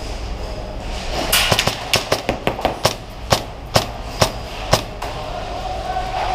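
Airsoft electric gun (AEG) firing a string of semi-automatic shots: a quick cluster of cracks about a second in, then single shots roughly two a second, the last and loudest about five seconds in.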